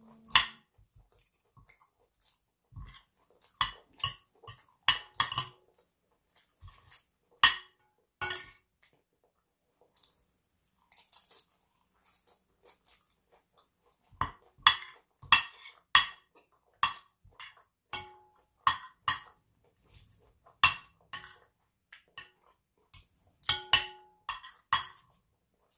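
Metal knife and spoon clinking and scraping on a plate while eating, a string of sharp separate clicks, some ringing briefly, with close-miked chewing between them. The clinks come in two busy spells with a quieter stretch in between.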